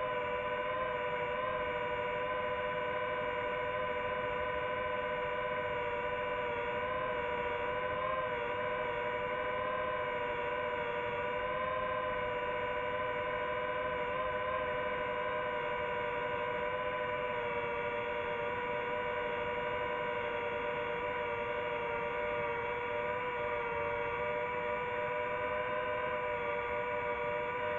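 DJI FPV drone's motors and propellers whining steadily in flight, the pitch wavering slightly as the throttle changes.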